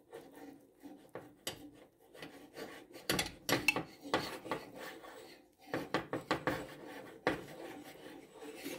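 A spoon stirring stiff, floury dough in a glass bowl: it scrapes and rubs through the dough in irregular strokes, with short knocks against the bowl. The dough is being thickened by working in the last of the flour.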